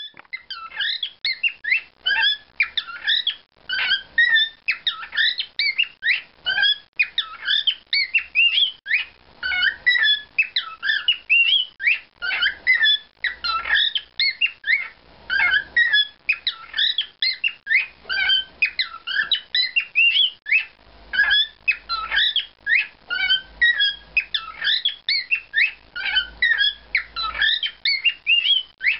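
Male cockatiel singing: a long, continuous run of rapid chirps and warbling whistles that rise and fall in pitch, with only brief pauses.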